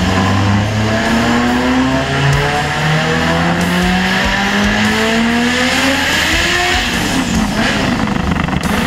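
Mazda rallycross car's engine making a power run on a chassis dyno, its wheels driving the rollers. The pitch climbs steadily for about six seconds as the revs rise, then drops and breaks up near the end as the throttle comes off.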